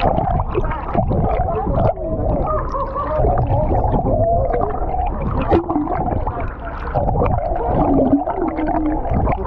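Muffled sound heard underwater: a steady low rumble of moving water with wavering, whistle-like tones and scattered clicks.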